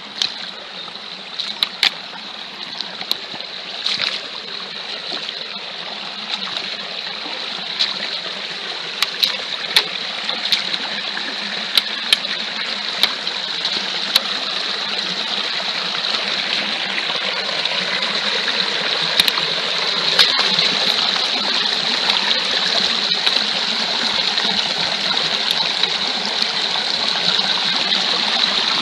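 Shallow stream running over rocks and a small cascade, its rushing growing steadily louder as the cascade nears. Short sharp splashes of wellington boots wading through the water come mostly in the first half.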